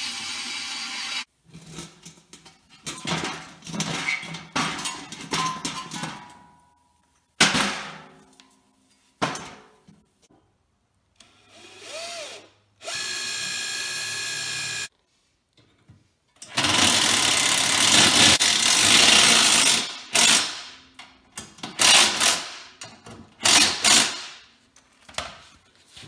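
Drill with a hole saw cutting through the steel dish end of a water heater tank, followed by a string of short metalworking tool sounds. There is a steady motor whine for about two seconds midway, a loud noisy stretch of about three seconds, then several sharp knocks near the end.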